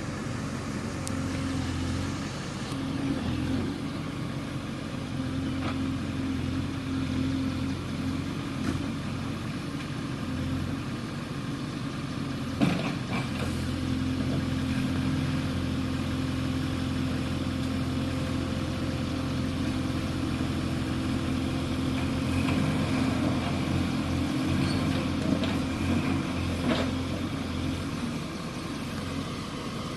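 Heavy diesel engine running, its pitch shifting in steps as the load or speed changes, with a sharp metallic clank about twelve seconds in.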